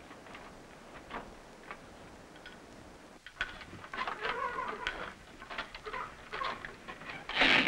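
Wooden handloom at work: clattering clicks and knocks from about three seconds in, ending in a loud knock. Before that, only faint background with a few soft ticks.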